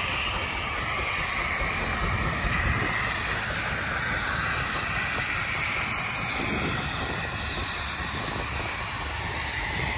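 Steady rumble and scrape of a 44-bottom John Deere gang plow being dragged through the soil under load.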